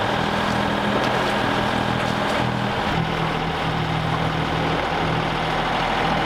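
Sailboat's engine running steadily under way, its low note shifting slightly about three seconds in, over a steady hiss. The sound cuts off suddenly at the end.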